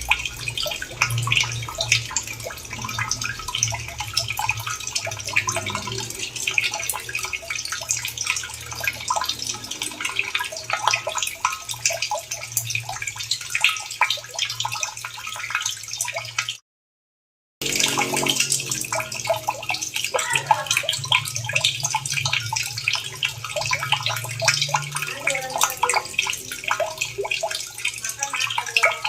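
Running water splashing and trickling, a dense irregular patter of droplets over a steady low rush. It cuts out to complete silence for about a second a little past the middle.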